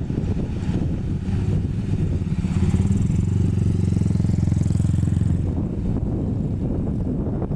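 Sany SY215C excavator's diesel engine running steadily, pulling harder from about two seconds in and easing back to its earlier level after about five and a half seconds.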